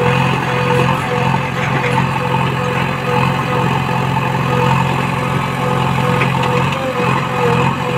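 JCB 3DX backhoe loader's four-cylinder diesel engine running steadily while powering the backhoe hydraulics, lifting a bucket of earth and tipping it into a trailer.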